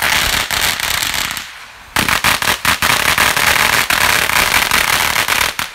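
Ground firework going off with a loud, rapid string of crackling pops and bangs; it eases briefly about a second and a half in, starts again about half a second later, and cuts off near the end.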